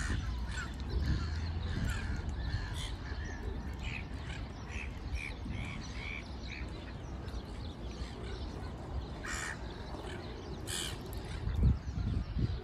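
Wild birds calling around a pond: a run of short chirping notes midway through, then two brief harsh calls a little later, over a steady low rumble.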